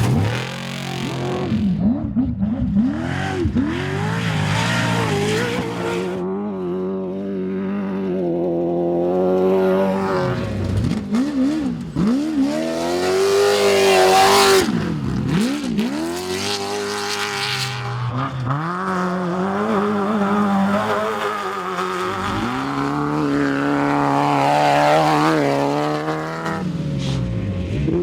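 Off-road race cars' engines revving hard and passing by one after another, the pitch climbing as they accelerate and swooping down as each goes past.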